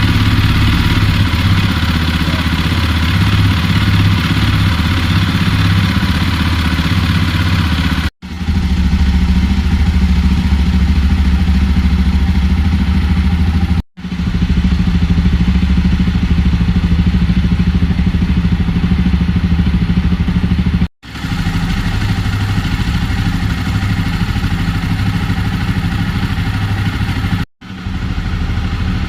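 Jawa motorcycle's single-cylinder engine idling steadily, with a deep, even exhaust note. It breaks off for an instant four times.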